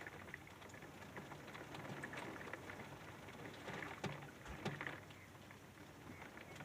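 Faint hurricane rain pattering steadily, with scattered drips and two louder knocks a little past halfway.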